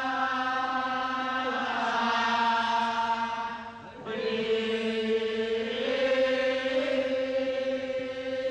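Sustained chanting over a steady low drone, with long-held notes. The music breaks briefly about four seconds in, then resumes with one held tone stepping higher.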